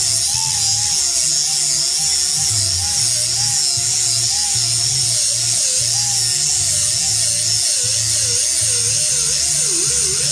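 Background music over the high whir of a small high-speed rotary tool cutting away the excess aluminium voice coil former of a subwoofer.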